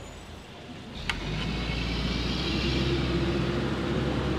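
Garbage truck's diesel engine running close by, swelling in about a second in and then holding steady with a low drone and a hiss above it. A single light clink sounds as it comes in.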